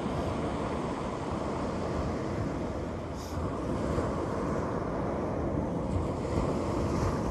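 Steady wind buffeting the microphone, a low rumbling noise with no let-up, with a brief hiss about three seconds in.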